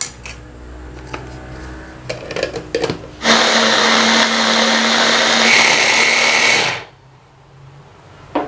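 Electric mini chopper (a stick-blender motor unit seated on a chopper bowl) runs for about three and a half seconds, grinding raw chicken and garlic. It gives a loud, steady motor whir that stops abruptly, and a higher whine comes in shortly before it stops. Light clicks and knocks come first, as the motor unit is fitted onto the bowl.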